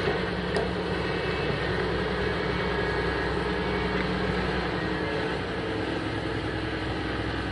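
An excavator's engine running steadily at a constant speed, a low, even mechanical hum with no changes in pitch.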